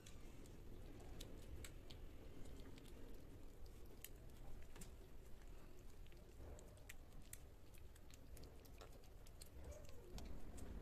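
Kittens eating mushy food from a plate: faint, irregular little clicks and smacks of lapping and chewing.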